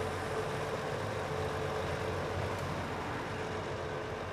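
Kiya 95 series diesel track-inspection train running across a railway overbridge: a steady running noise from the engine and wheels on the rails, with a faint held tone through it.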